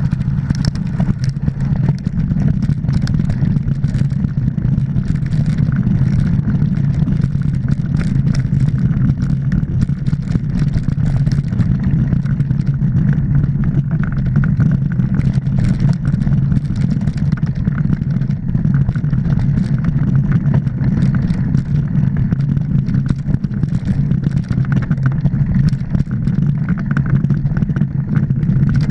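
Mountain bike riding over a rough dirt trail: a loud, steady low rumble of wind and ride vibration on the camera, with constant small clicks and rattles from the bike over the ground.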